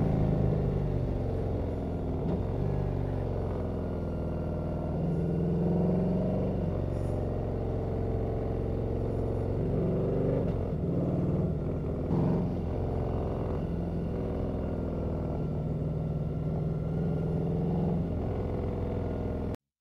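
Harley-Davidson V-twin motorcycle engine running on the road, heard from the rider's own bike, its pitch rising and falling with the throttle. The sound cuts off abruptly near the end.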